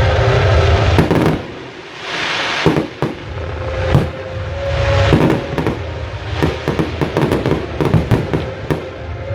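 Fireworks display: many sharp cracks and bangs from bursting shells over a low rumbling boom, with a hissing crackle about two seconds in.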